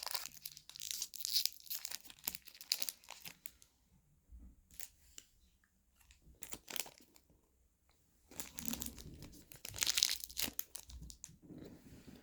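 Plastic food packaging crinkling as it is handled and torn open, in two busy bouts with a sparser stretch of odd crackles between them.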